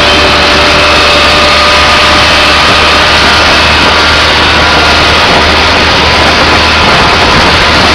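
Small engine of an open three-wheeled coco taxi running at speed, mixed with wind and road noise in one loud, steady din.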